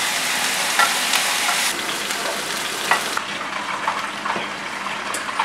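Broccoli and cauliflower sizzling as they are stir-fried in a nonstick pan: a steady frying hiss with a few light knocks, thinning a little about three seconds in.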